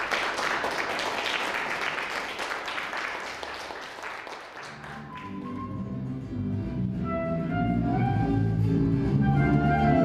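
Audience applause for about four seconds, fading as live music begins: a guitar with sustained melody notes above it, growing louder toward the end.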